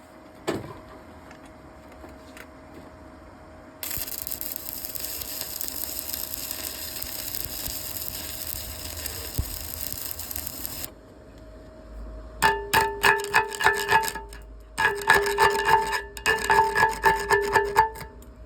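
Metalwork on a steel excavator arm: a steady hiss for about seven seconds, then bursts of rapid rasping strokes, about four a second, that set the steel ringing.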